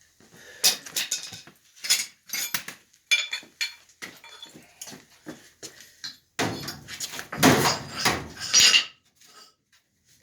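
Metal parts and tools clanking and clinking as they are handled during a furnace change-out, a run of separate sharp knocks with a heavier burst of clatter in the second half.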